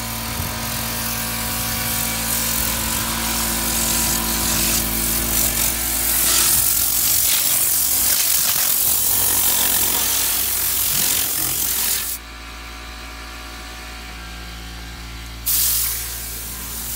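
Motorised car-detailing equipment running steadily under a loud hiss; the hiss cuts out for about three seconds near the end while the motor's hum keeps going, then starts again.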